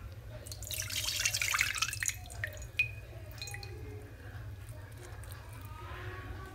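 Milky wash water poured off a plate of kneaded salted butter, the water that has drawn the leftover milk out of the butter. It pours for about a second and a half, then drips in scattered drops.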